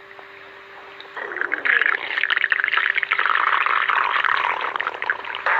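A human stomach growling: a long, gurgling rumble of wavering pitch that starts about a second in and runs for about four seconds.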